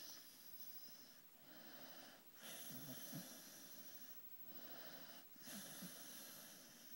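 A sleeping beagle snoring: faint, wheezy breaths in and out, about five in a row, with a few short low rattles in the middle and near the end.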